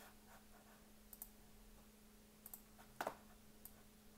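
Scattered clicks of a computer mouse and keyboard, a few single and doubled presses, the loudest about three seconds in, over a faint steady electrical hum.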